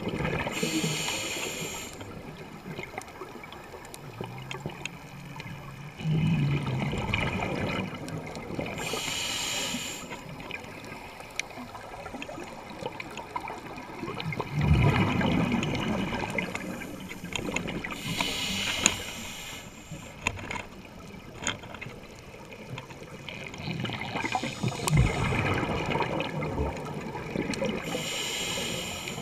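Scuba regulator breathing heard underwater: four bursts of exhaled bubbles, each a hissing gurgle about a second long, roughly every nine seconds, with low rumbling water noise between them.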